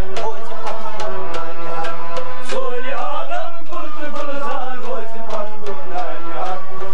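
Live South Asian folk music: a harmonium holds chords under a plucked rabab and a steady tabla beat, while a man sings a wavering, ornamented line in the middle.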